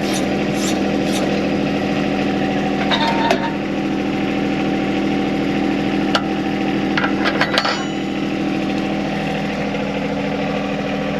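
John Deere compact tractor's three-cylinder diesel running steadily at low idle, with several sharp metal clinks near the start, about three seconds in, and again around six to seven and a half seconds in, as the backhoe's steel boom lock pins are lined up.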